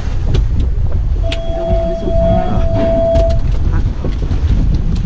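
Wind buffeting the microphone over the low rumble of a boat on open water, with scattered knocks. A steady high tone sounds for about two seconds, starting a little over a second in.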